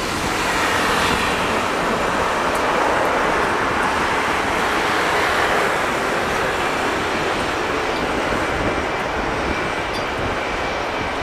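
Jet airliner engine noise, a steady broad rush that swells over the first few seconds and then holds, with a faint high whine coming in near the end.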